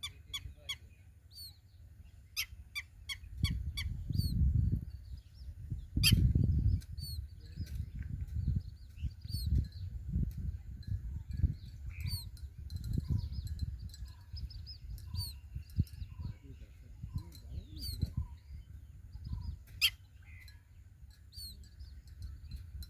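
A hatching chick peeping over and over, short falling high notes about once a second, over irregular low rumbling and knocking noise, loudest about four and six seconds in.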